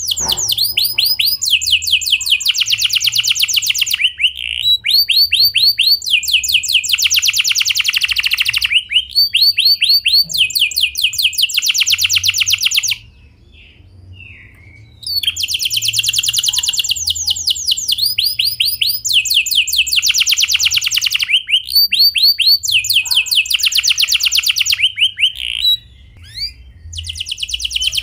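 Domestic canary singing long rolling trills: rapid strings of repeated high notes, many sliding in pitch, in phrases. The song breaks off twice, for about two seconds halfway through and briefly near the end.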